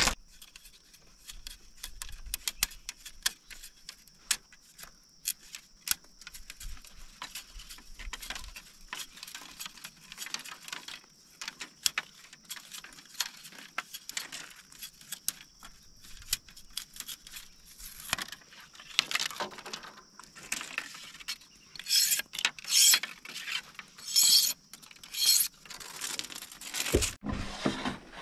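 A machete blade scraping and splitting a thin strip of bamboo: a run of small clicks and scratches, then louder rasping strokes in bursts in the second half. Near the end a dull knock, bamboo poles set down on the stones.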